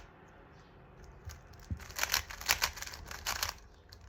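A 3x3 Rubik's cube being twisted by hand: a quick run of plastic clicks and rattles as its layers turn, starting about two seconds in after a quieter stretch.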